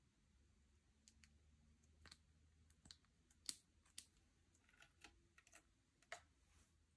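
Slime being squished and pulled by hand, giving faint, irregular little clicks and pops, the loudest about halfway through and again near the end.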